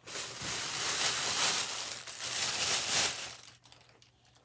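A bag rustling and crinkling as empty packaging is rummaged through; it lasts about three and a half seconds and trails off near the end.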